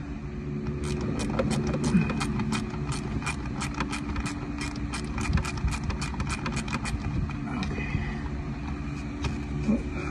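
Ratcheting screwdriver clicking rapidly and evenly, about four or five clicks a second, as sun visor bracket screws are backed out. The clicking stops about seven seconds in, with a few more clicks near the end, over a steady hum.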